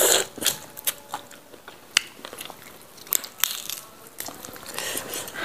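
Eating sounds of teeth biting and gnawing meat and gristle off a grilled goat's foot: irregular sharp crunches and clicks, the loudest right at the start and about two seconds in.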